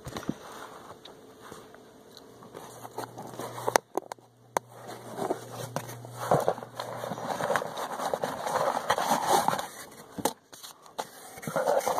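Hands rummaging in a cardboard box and handling homemade paper card packs: uneven rustling and scraping of paper and cardboard with scattered clicks and knocks. A faint low hum runs for a few seconds in the middle.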